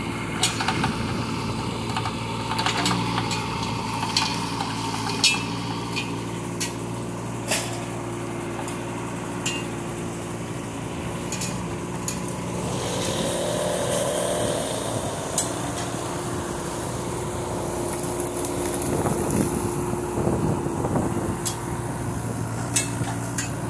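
Kubota K008 micro excavator's three-cylinder diesel engine running steadily while its hydraulics work the boom and bucket, with a rising and falling whine about halfway through. Sharp metallic clanks and knocks come again and again over the engine.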